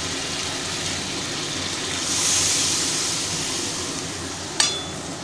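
Ginger-garlic-onion paste and ground spices sizzling in hot oil in a kadai. About two seconds in, a louder hiss swells up as water is poured in, then eases off. Near the end, a single metallic clink of the steel spatula against the pan.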